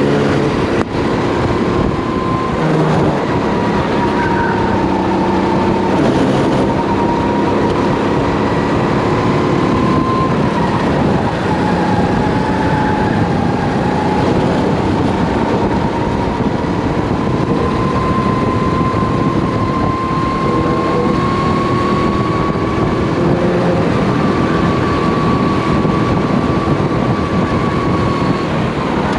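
Race kart engine running at speed around a track, heard onboard over a constant rush of noise; its whine wavers in pitch, dropping a little about midway and climbing again later as the kart brakes and accelerates through the corners.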